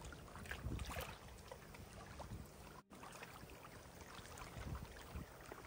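Faint outdoor background: a low rumble of air with small scattered clicks and rustles. The sound drops out for an instant about halfway through.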